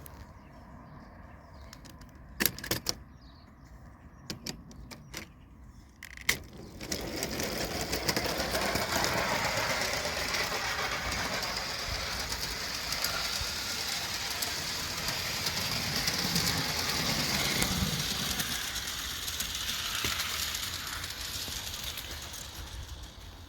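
A Meccano-built machine driven by two small Meccano motors through a differential-style gearbox, whirring and rattling as it runs. A few sharp clicks come first; the running sound starts about seven seconds in and fades away near the end.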